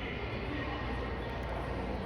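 Indistinct chatter of many people in a large hall, a steady crowd murmur with no one voice standing out.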